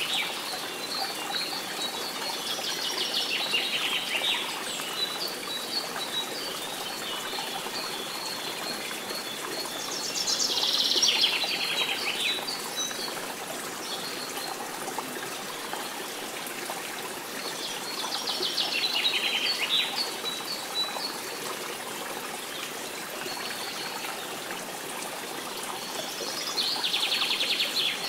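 Nature ambience of running water, a steady even rush, with a short trilling call rising out of it four times, about every eight seconds, and faint steady chirping beneath.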